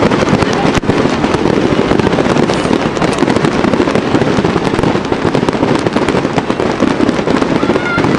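Fireworks display: a loud, continuous barrage of rapid overlapping bangs and crackles.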